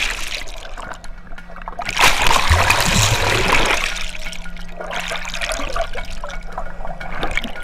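Rushing water and bubbles heard through a camera held underwater, surging loudest about two seconds in and then settling. A faint steady low hum runs beneath.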